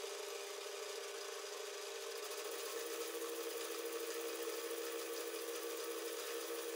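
Metal lathe running under cut, a round-tip carbide insert turning the outer diameter of a large metal workpiece: a steady motor whine with a cutting hiss over it, growing a little louder about two seconds in.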